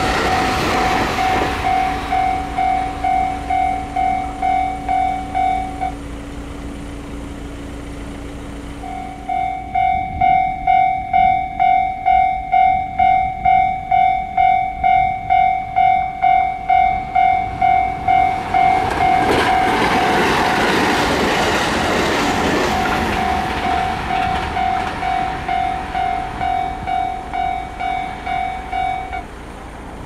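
Japanese railway level-crossing warning bell ringing in an electronic clanging pattern about twice a second. It pauses for a few seconds early on, resumes louder, and stops near the end. Partway through, a train passes with a swelling rush of wheel and rail noise.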